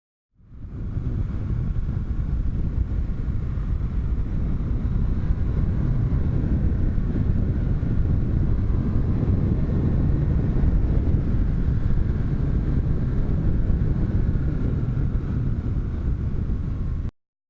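BMW R 1200 GS boxer-twin motorcycle running steadily as it is ridden, a loud low rumble that starts suddenly and cuts off abruptly near the end.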